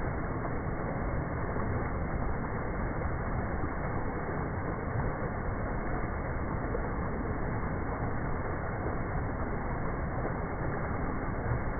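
Creek water running, a steady, unbroken rush.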